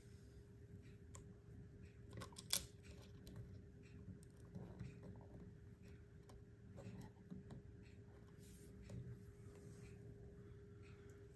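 Soft handling noises of a microSD card being pushed into a security camera's card slot, with one sharp click about two and a half seconds in as the card goes home. A faint steady hum runs underneath.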